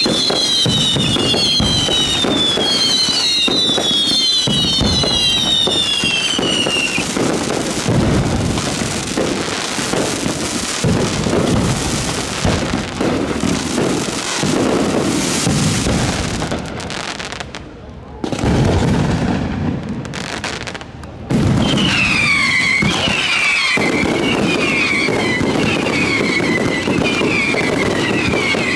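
Fireworks display at close range: dense crackling and rapid bangs, overlaid by many falling whistles from whistling fireworks. The whistles fill the first several seconds, stop while the bangs go on, and return after a short lull about two-thirds through.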